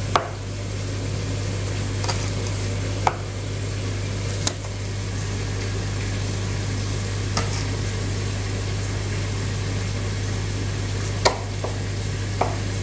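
A few sharp, scattered knocks of a chef's knife cutting green chillies against a plastic cutting board, over a steady sizzle and low hum.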